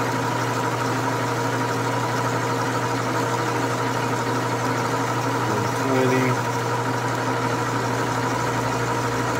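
Metal lathe running under power and taking a cut in a pinion gear blank, throwing metal chips. It gives a steady machine hum with a constant whine, and a short louder sound about six seconds in.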